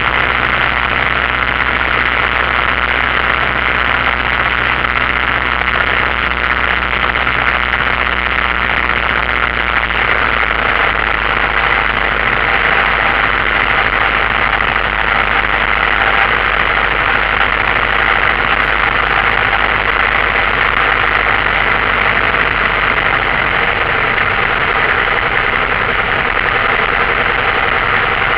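Single-engine light aircraft's piston engine and propeller running steadily, heard from inside the cockpit with airflow noise mixed in. The low engine note changes about ten seconds in.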